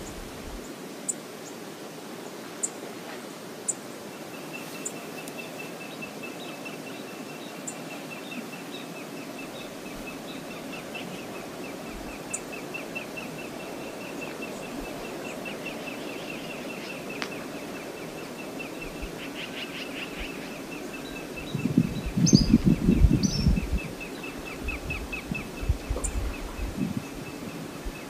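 Steady outdoor river ambience with a steady rush of water. A high, rapid pulsing trill runs through most of it, with a few faint high ticks. About two-thirds through, a burst of low rumbling thumps lasts a couple of seconds.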